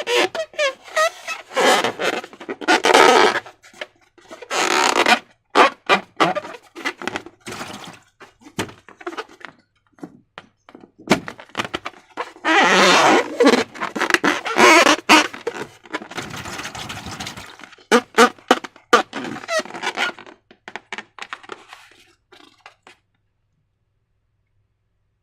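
Slime being handled by hand: irregular wet squelches, thunks and clicks, with a few longer squelching passages. It stops a couple of seconds before the end.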